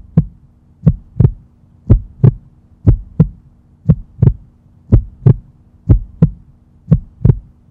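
Heartbeat sound effect: paired lub-dub thumps, about one beat a second, over a faint steady hum.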